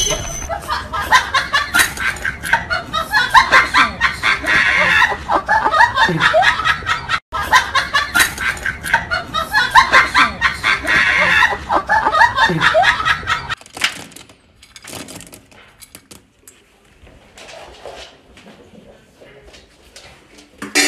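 People laughing heartily in quick, overlapping peals. The laughter breaks off for an instant about a third of the way in, then resumes, and stops abruptly about two-thirds of the way through, leaving only faint scattered sounds.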